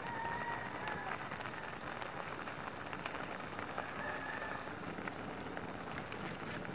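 Sinigang broth with red snapper and vegetables at a rolling boil in a wok over a wood fire: steady, dense bubbling with many small pops.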